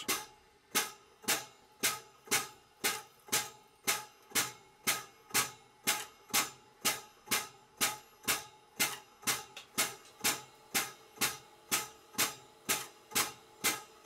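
Horizontal Southworth double-acting boiler feed pump running on compressed air, clicking at a steady beat of about two strokes a second, each click with a short metallic ring, as it pumps water into the boiler.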